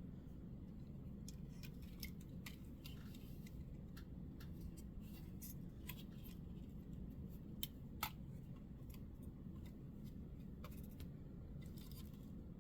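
Faint, scattered small clicks and taps of plastic model freight cars being handled, with two sharper clicks about eight seconds in, over a steady low room hum.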